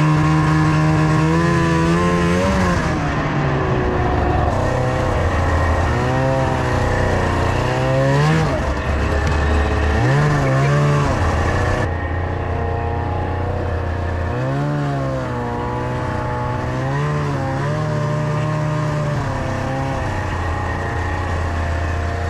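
Two-stroke engine of a 1999 Arctic Cat ZR600 snowmobile running under way. Its pitch holds steady at first, then rises and falls over and over as the throttle is worked.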